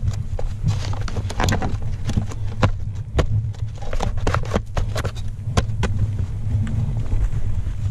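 Snow bike's engine idling with a steady low throb while the bike sits stuck in deep snow, over irregular sharp knocks and crunches of snow.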